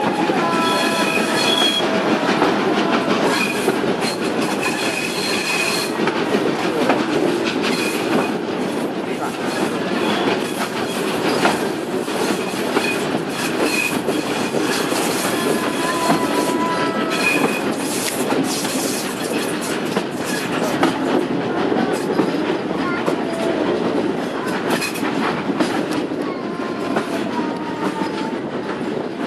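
Vintage passenger carriages of a steam-hauled train running over jointed track on a winding line: a steady rolling rumble with repeated clicks from the rail joints. Thin high wheel squeal from the curves comes and goes, strongest in the first few seconds and again briefly around the middle and near the end.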